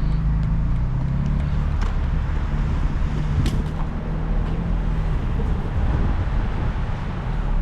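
Car engine and road noise from a moving car: a steady low engine drone that fades about five seconds in, leaving a low rumble.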